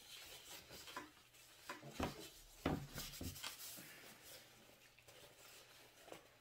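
Paper napkin rustling and crinkling as hands are wiped with it and it is crumpled, in irregular bursts, the sharpest crinkles about two and a half seconds in.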